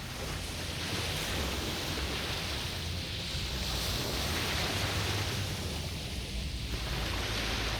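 Sea waves washing onto the shore: a continuous surf hiss that swells and eases, with a low rumble underneath.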